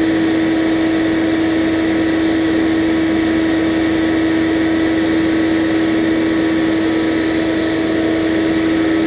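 Steady machine hum with one strong constant tone, holding the same pitch throughout with no rise or fall.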